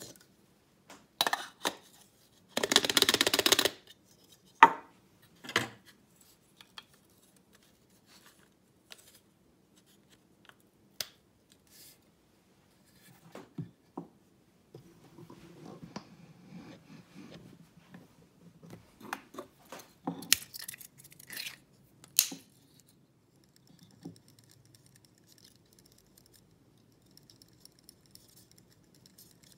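Hands handling espresso gear: scattered clicks and clatter of the plastic dosing cup and portafilter, with a loud rattle of about a second near the start. Soft rustling of coffee grounds follows, and near the end a faint scratchy stirring as a needle tool works through the grounds in the portafilter.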